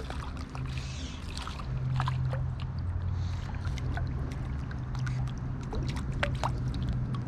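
Close-up splashes, drips and trickles of river water as a just-landed trout is handled, with scattered sharp clicks and dripping blips over a steady low rumble.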